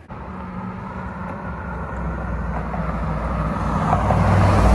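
A car's engine running with a steady low hum, growing steadily louder as the vehicle comes closer, with the deep low end loudest near the end.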